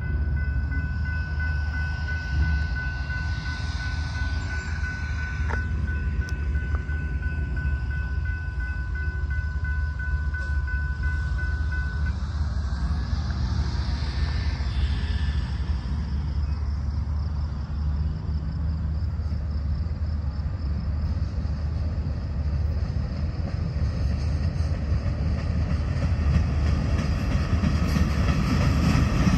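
Freight train approaching on a shove move, with an EMD GP38-2 diesel locomotive pushing a covered hopper and a caboose: a steady low rumble of engine and wheels that grows louder near the end as the train draws close. A steady high tone sounds until about twelve seconds in.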